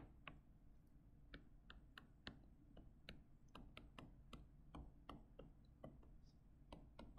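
Faint, irregular ticks of a stylus tip tapping and sliding on a tablet screen while handwriting, about two to three clicks a second over low room hum.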